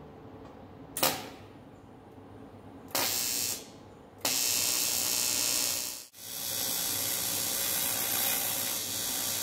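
TIG welding arc on aluminium: a short strike about a second in, a half-second burst near three seconds, then a steady hissing arc held from about four seconds on, broken for an instant near six seconds.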